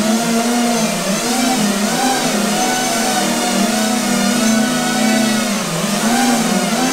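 Electric motors and propellers of a quad-rotor RC VTOL airplane hovering, a steady buzzing whine whose pitch keeps wavering up and down as the motor speeds change.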